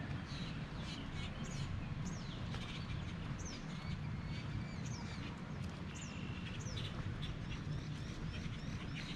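Songbirds chirping: a steady run of short, high, downward-sliding notes, repeated roughly every half second, over a steady low rumble.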